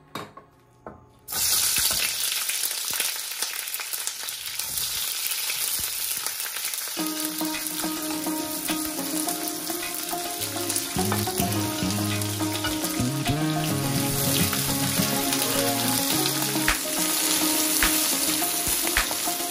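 Sliced onion and bell pepper strips frying in oil in a wok: a steady sizzle that starts suddenly about a second in, with the light clicks of a spatula stirring. Soft background music joins about seven seconds in.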